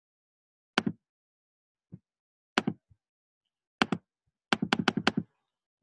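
Computer keyboard keystrokes and clicks while editing text: separate sharp clicks about a second apart, then a quick run of five near the end.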